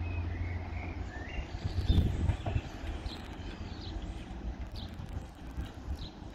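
Outdoor ambience: a steady low wind rumble on the microphone, swelling briefly about two seconds in, with small birds chirping, short calls repeating roughly once a second in the second half.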